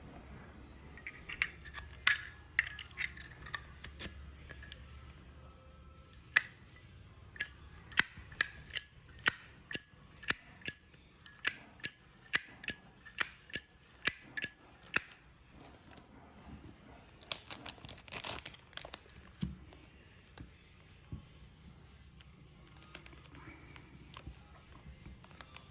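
Metal Zippo lighter being handled: a run of sharp metallic clicks with a short high ring, about two a second, with scattered clicks before and a brief rasping scrape afterwards.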